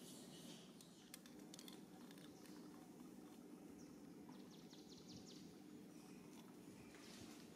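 Near silence: faint outdoor background with a steady low hum, a few light clicks about a second in, and a short run of rapid high chirps around four to five seconds in.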